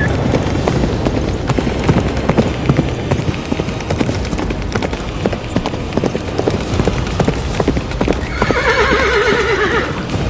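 Horse hooves clip-clopping in a rapid, uneven run of sharp knocks, with a horse whinnying for about two seconds near the end.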